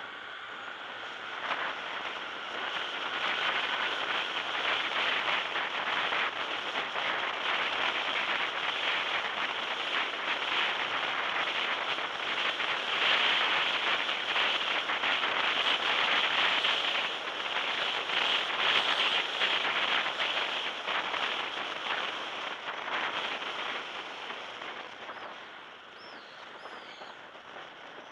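Road and traffic noise from a car driving through a road tunnel: a dense, crackly rush that grows louder a couple of seconds in and eases off near the end as the car comes out into the open.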